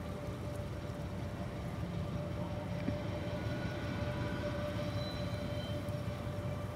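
TGM6A diesel-hydraulic shunting locomotive running under load as it slowly hauls a freight train of open wagons, a steady low engine rumble with a constant hum over it.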